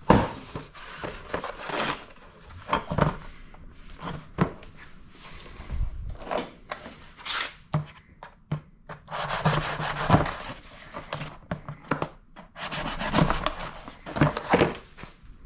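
Hands handling tools and parts: irregular rubbing and scraping with scattered small knocks, in longer scraping stretches near the middle and again towards the end.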